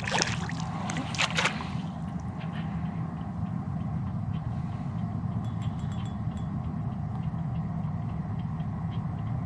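Two brief splashes within the first two seconds as a hooked young lake sturgeon is played at the surface, over a steady low rumble.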